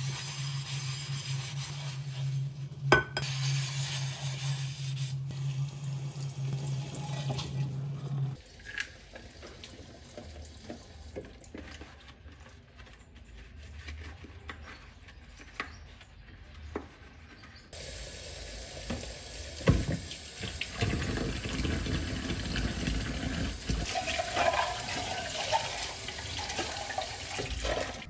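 Kitchen tap running into a stainless steel sink while dishes are washed with a sponge. The running water stops about a third of the way in, leaving quieter scrubbing and light clinks of dishes, then runs again for rinsing a little after halfway.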